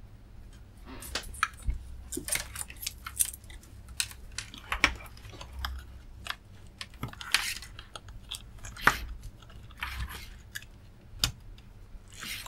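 Scattered clicks, taps and short scrapes of hands handling a hard drive and its cables on a workbench, over a faint low steady hum.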